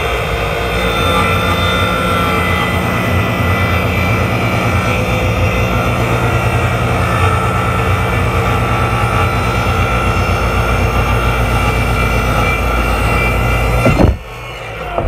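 Corded electric portable table saw running steadily with a whining motor, then cut off near the end with a sharp knock.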